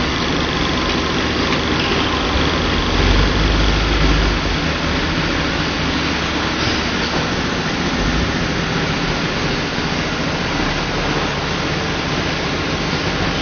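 Shrink-sleeve labeling line and bottle conveyor running: a steady machine noise, with a low rumble that swells briefly about three seconds in.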